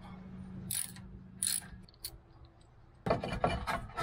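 Steel brake rotor being worked off the rear wheel hub of a Mercedes Sprinter: a couple of light metallic clicks, then about a second of rapid, loud metal clanking and scraping near the end as the rotor comes loose. A steady low hum runs underneath for the first half.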